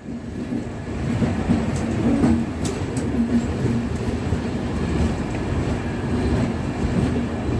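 Passenger express train rolling on the rails as it enters a station: a steady low rumble with a few sharp clicks of the wheels over rail joints.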